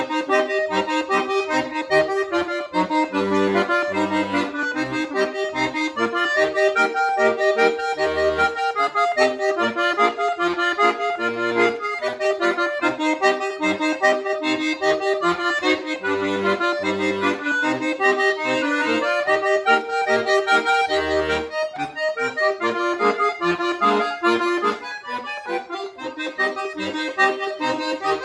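Chromatic button accordion played solo: a quick melody of many short notes over bass notes and chords that come and go.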